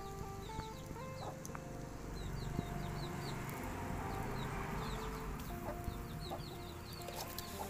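Birds calling: rows of short, repeated high chirps over lower clucking notes at changing pitches, with a few faint clicks.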